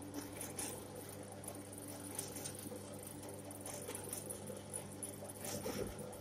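Clay pugmill running, its electric drive motor giving a steady hum while the feed rollers in the hopper turn and squeeze wet clay, with scattered irregular clicks and squishes.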